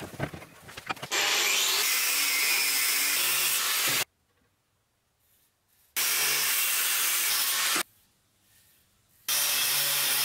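Angle grinder with a thin cut-off disc cutting into a steel flat bar, a loud steady hiss over the motor's hum. It comes in three stretches that each stop abruptly, with near silence between, after about a second of clattering as the bar is handled.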